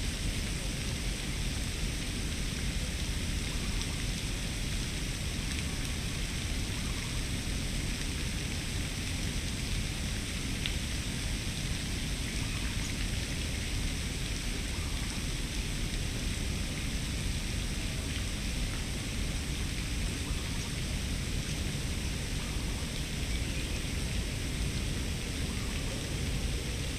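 Steady, even outdoor hiss with a low rumble underneath, unchanging throughout, with no single event standing out.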